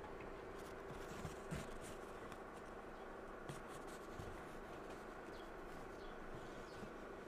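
Faint crunch of a car's tyres rolling slowly over a gritty dirt road, with scattered small clicks and scratches over a steady background noise.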